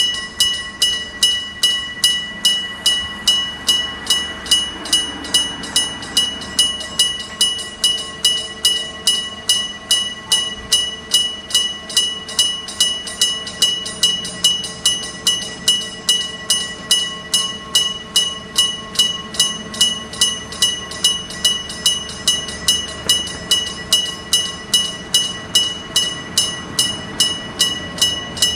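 Electric level-crossing bell, an electromagnetic hammer striking a metal gong, ringing steadily at about two strikes a second as the crossing warning sounds.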